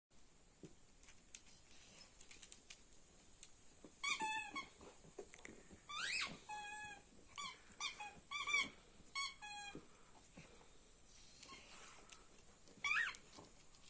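Rubber squeaky ball squeaking in short bursts as a German spaniel puppy bites and chews it. The squeaks come in several bouts over about six seconds, then once more near the end.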